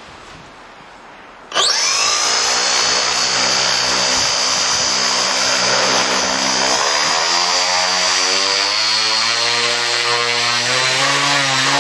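Turnigy CA 120-70 brushless outrunner motor driving a 30x10 Xoar propeller on a static thrust test stand. It starts abruptly about a second and a half in and runs loud and steady: a high whine over the propeller's low drone.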